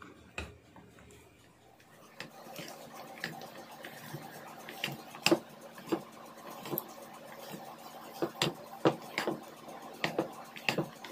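Silicone spatula folding meringue into cake batter in a glass bowl: irregular sharp taps and clicks of the spatula against the glass, from about two seconds in.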